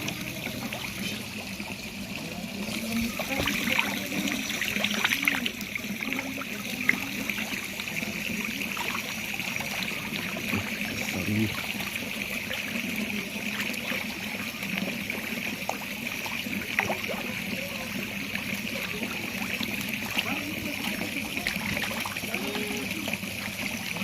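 Water trickling steadily into a pond, with a few brief splashes.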